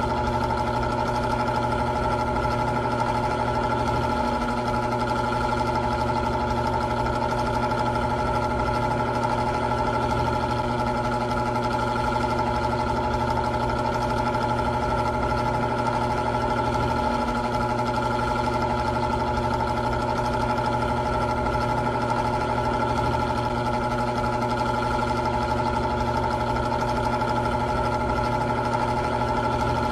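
Old electric fan running steadily, its motor humming with a constant whine over the rush of air from the blades.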